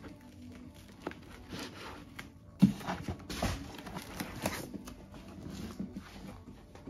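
Handling noises of a model wheel loader and its foam-lined wooden crate: rustling and scraping against the foam with light knocks, and one sharp knock about two and a half seconds in.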